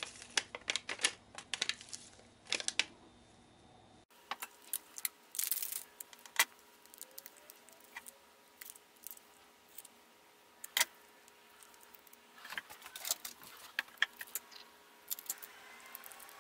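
Scattered light clicks, taps and rattles of 18650 lithium-ion cells and small tools being handled and set down on a workbench, some coming in quick clusters.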